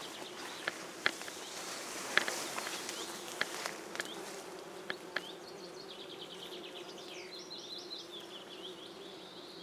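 Many bumblebees humming steadily while foraging on linden blossom. A few light clicks come in the first half, and a bird gives a run of quick repeated chirps from about six seconds in.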